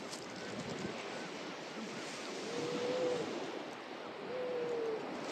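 Small waves washing onto a pebble shore, with seals calling: two long, steady-pitched moaning calls, one about two and a half seconds in and another about four seconds in.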